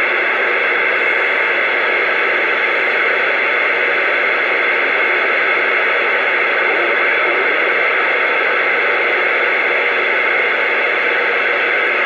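Steady hiss of static from a CB radio's speaker: open-channel band noise between transmissions, with no station talking.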